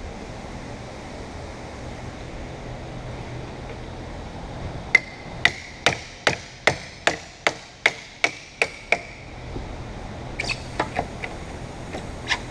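Hammer tapping: about eleven sharp, evenly paced strikes at roughly two and a half a second, then a few lighter taps near the end.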